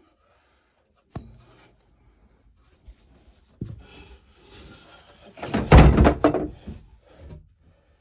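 Handling and bumping noise: a sharp click, a knock, then a few seconds of rustling and scraping, loudest about six seconds in.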